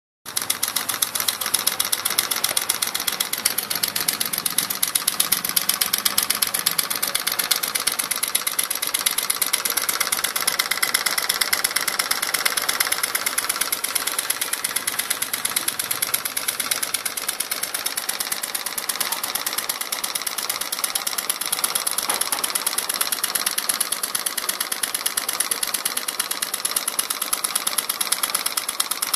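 Homemade beverage-can Stirling engine running over a flame, with a fast, even mechanical clatter of many clicks a second.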